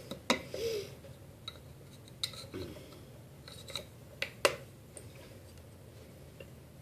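Scattered light clicks and knocks of small hard objects being picked up and set down on a wooden board, about eight in the first five seconds and then little.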